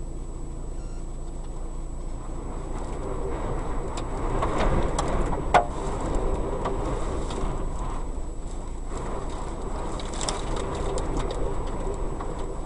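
Strong wind buffeting the microphone, a low rumble that gusts harder about four to five seconds in. A sharp click midway and a few lighter clicks later.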